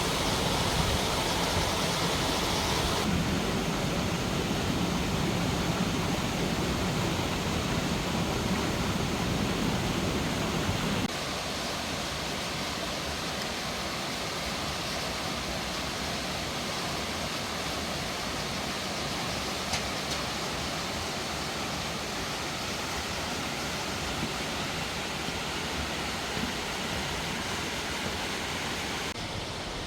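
Steady rushing of water in a mountain stream, changing abruptly about 3 and 11 seconds in and again near the end, and quieter after the middle change.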